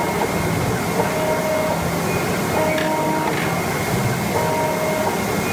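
GD series flatbed cutting plotter at work: the vacuum table's pump gives a steady rushing noise with a constant high tone, while the tool head's drive motors whine in short stretches as the head moves across the sheet, about every second and a half.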